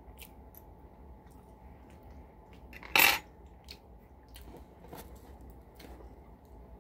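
A metal fork clatters down onto a table once, sharply, about three seconds in, among soft clicks of food and cutlery being handled.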